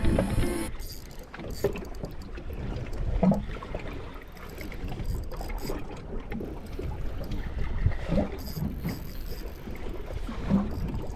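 Steady low rumble of a boat at sea with wind on the microphone, with a few scattered knocks.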